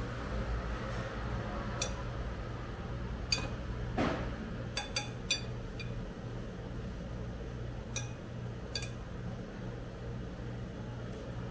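Metal chopsticks clinking against a ceramic plate as food is moved about: a run of sharp, ringing clinks in the first half and two more later on, over a steady low hum.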